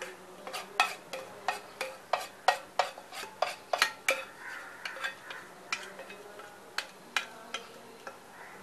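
Spatula scraping and tapping thick batter out of an enamel bowl into a steel tin: a quick run of sharp clinks and scrapes, about three a second, that thins out over the last couple of seconds.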